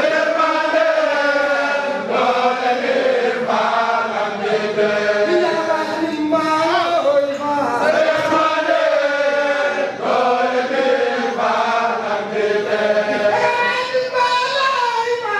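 A group of men chanting a Mouride devotional chant together, in melodic phrases a few seconds long.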